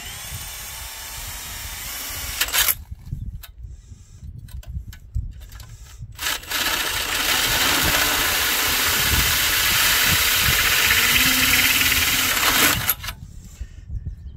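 Cordless drill turning a 1-3/8-inch Milwaukee Hole Dozer bi-metal hole saw, cutting a vent hole through the thin rusty steel of a cement mixer drum. A short run of cutting stops after about two and a half seconds. A few seconds later a longer, louder steady run of about six seconds follows and stops near the end.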